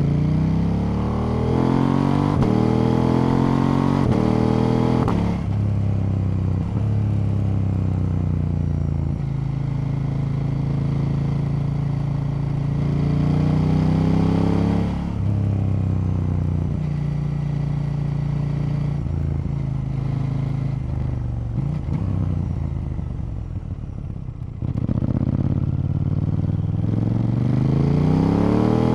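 KTM 890 Duke's parallel-twin engine on the open road, pulling hard through the gears: rising pitch broken by quick upshifts in the first few seconds, then steadier running. The engine eases off and drops lower a few seconds before the end, then rises again in another hard pull.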